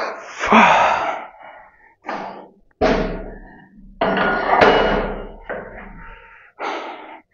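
Weight plate set down on the floor among other plates: two sudden heavy thuds about three and four seconds in, the second with a brief metallic ring.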